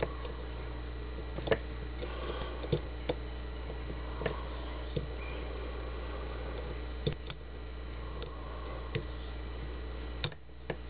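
Single-pin picking of a pin-tumbler rim cylinder lock: a hook pick and tension wrench make scattered light metallic clicks and ticks at irregular intervals as pins are lifted and set, over a steady low hum.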